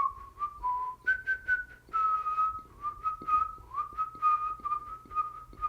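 A person whistling a short, wandering tune in held notes with small slides between them, over light scattered taps.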